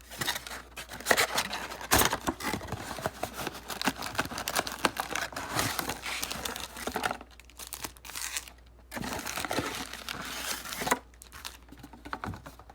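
Plastic wrapping on a trading-card box crinkling and tearing as it is ripped open, with sharp snaps about two seconds in and again near the end, and a brief quieter spell in the middle.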